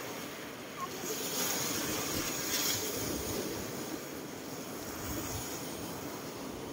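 Sea waves washing on a rocky shore with wind on the microphone, a steady rushing noise that swells for a couple of seconds about a second in.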